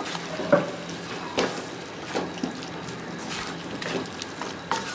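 Wooden spatula stirring and scraping a thick beef masala in a nonstick pan, a scrape or knock about once a second, over a steady sizzle of frying.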